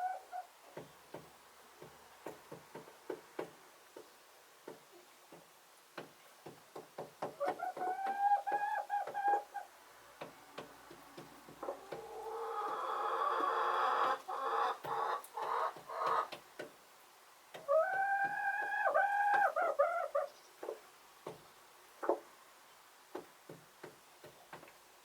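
Chickens calling and clucking over frequent light taps. There are two drawn-out calls, and between them a longer, louder call lasting about four seconds.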